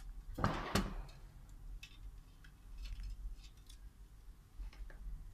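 Small metal hand tools being picked up and handled on a workbench: a brief scraping clatter about half a second in, then scattered light clicks.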